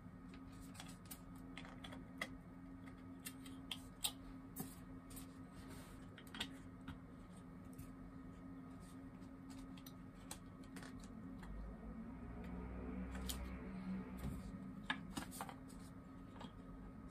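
3D-printed plastic pin parts and a pegboard being handled: scattered small plastic clicks and taps as the pins are pushed through the board's holes into the base parts, over a faint steady hum.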